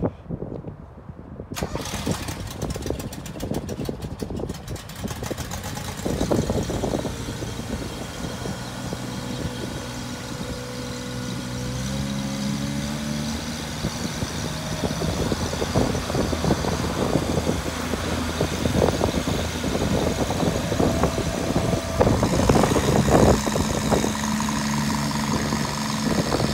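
Small auxiliary pony engine on a forestry bucket truck cranking for a few seconds, catching about six seconds in, then running steadily, its pitch rising briefly as it settles. This is the engine that drives the truck's boom and outrigger hydraulics.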